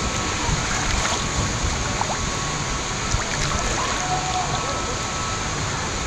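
Lazy river water lapping and sloshing steadily around a camera held at the water's surface, with a low rumble on the microphone.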